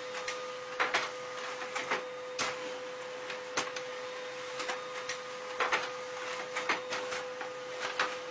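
Desktop printer running: a steady hum with irregular clicks and knocks from its mechanism and the paper.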